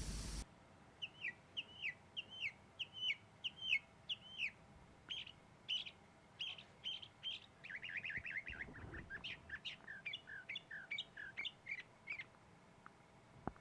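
Birds chirping: a string of short, high, downslurred chirps about two a second, giving way about halfway through to a faster, denser run of chirps.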